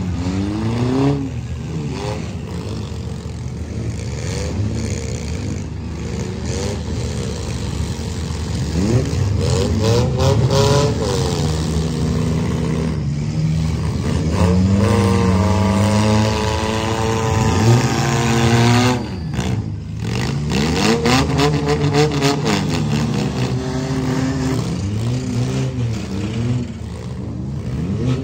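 Several demolition-derby compact cars' engines revving up and down together as they drive and ram, with sharp bangs of cars colliding here and there.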